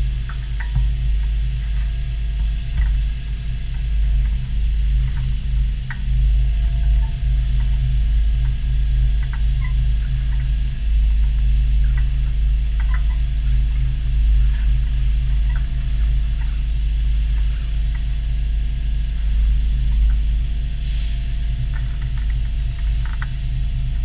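Concrete pump truck running, a steady low rumble with light ticks and clicks scattered through.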